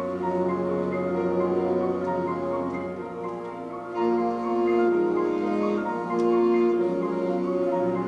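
Concert wind band playing held chords that swell louder about four seconds in, with ringing mallet-percussion notes.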